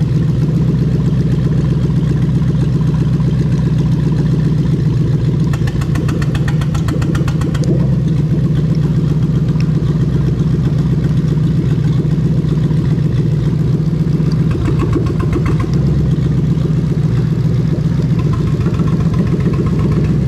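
Toyota 1UZ-FE VVT-i V8 running steadily with no exhaust fitted, a loud, even engine note.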